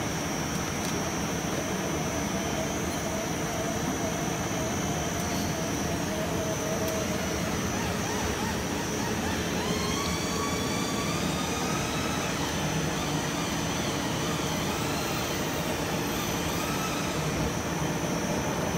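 Spiral duct forming machine running steadily, winding galvanized steel strip into a spiral-seamed round duct. A constant mechanical running noise with a high steady whine, and thin tones rising in pitch about halfway through.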